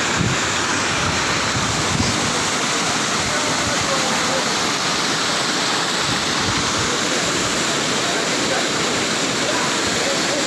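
Waterfall: falling water pouring steadily and loudly, an even rushing noise with no letup.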